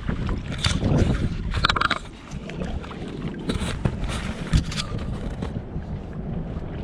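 Wind buffeting the microphone over the wash of the sea, with a few short noisy bursts of splashing and handling in the first four seconds and a single thump a little later.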